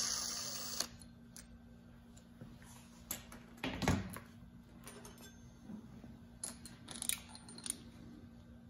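Metal tools and parts of a bolt-and-socket bushing press being handled as a hose clamp is taken off. A steady rasping noise stops within the first second, then come scattered light metal clicks and clunks, the loudest a dull knock about four seconds in.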